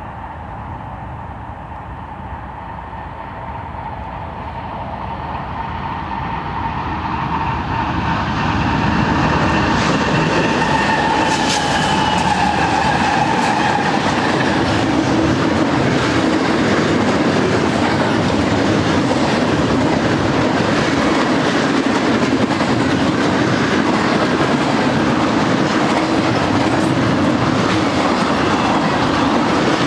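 BNSF double-stack intermodal freight train approaching and then rolling past close by. Its rumble grows louder over the first eight or nine seconds, with a whine that drops in pitch about ten seconds in. After that comes the steady rolling noise of the stack cars' wheels on the rails.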